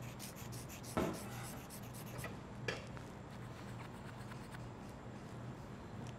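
Pen drawing on paper: quick, faint scratchy strokes, with a louder stroke about a second in and a few more after.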